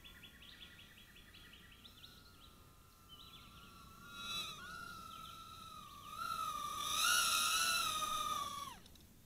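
CX-10 mini quadcopter's four tiny coreless motors and propellers whining at a high pitch, the whine wavering as it manoeuvres and growing louder as it comes close. Near the end the whine slides down and stops as the motors spin down.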